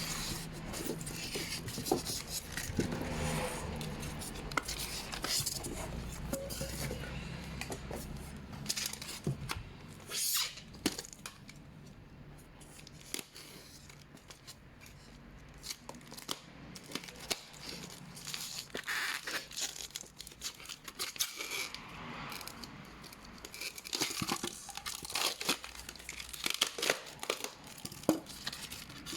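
Packaging being torn open and crinkled by hand, with scattered clicks and knocks from handling the box and its contents.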